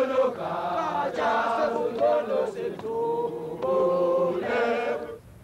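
Crowd of protesters singing a chant together in chorus, many voices holding long notes; the singing stops about five seconds in.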